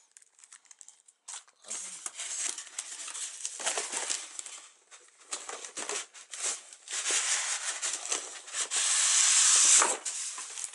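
Cardboard box and paper packaging being handled and opened: rustling, crackling and scraping in uneven bouts, with the loudest, longest scrape from about seven to ten seconds in as a white foam insert is slid out of the box.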